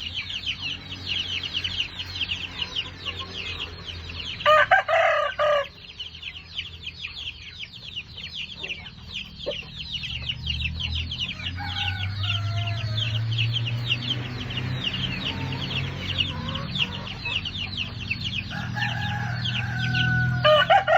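Chickens calling, with a loud crow-like call about five seconds in and another near the end, over a steady fast high-pitched chirping throughout.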